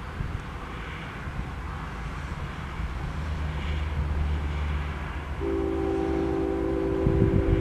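Approaching freight train's lead diesel locomotive, a GE ES44C4, with a low engine rumble building from about three seconds in, then its air horn sounding a steady chord from about five and a half seconds in, held to the end.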